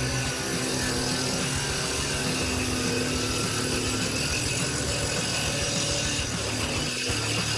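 A heavy forestry machine with a circular saw head running steadily: a continuous engine hum whose pitch shifts slightly, under a constant mechanical noise.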